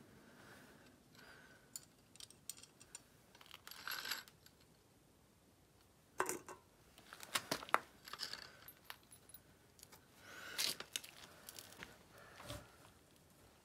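Light clicks and small metallic clinks from a miniature cannon being handled and set up by hand, scattered and irregular, with a couple of louder clusters around the middle and near the end; the cannon is being readied to fire.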